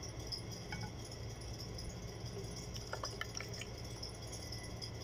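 A plastic ladle lightly clinking against a plastic bottle while a jelly-and-milk drink is poured in: one faint click just under a second in and a quick cluster of small clicks around three seconds in, over a steady low hum.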